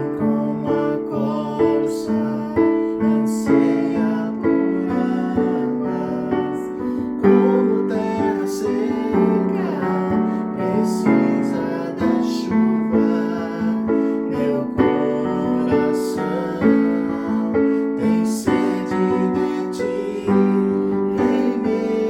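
Piano playing a slow instrumental introduction to a worship song, with chords and notes struck about once a second and some light high percussion strokes.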